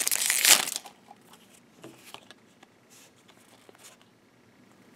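Foil booster-pack wrapper crinkling loudly as it is torn open, stopping under a second in; after that, only faint rustles and light taps of trading cards being handled.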